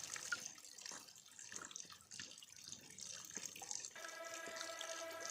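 Faint water dripping and splashing in scattered small drops. About four seconds in, soft held music tones fade in.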